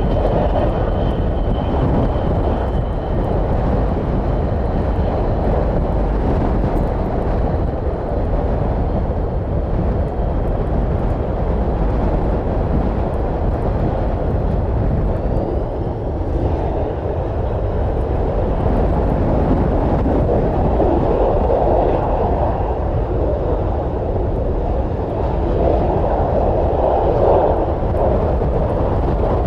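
The three Pratt & Whitney JT8D turbofans of a Boeing 727-200F running at taxi power as the freighter taxis and turns, a steady jet rumble with a high whine that fades over the first few seconds. Strong wind buffets the microphone.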